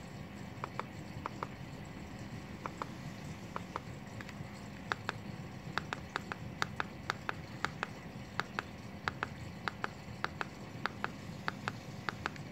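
Irregular sharp clicks, about two to four a second, from a Jebao RW-20 wavemaker controller's buttons being pressed, over a low steady hum.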